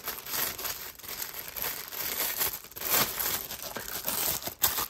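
Clear plastic bag crinkling and rustling in the hands as a zippered knife case is packed in it and slid into a cardboard box.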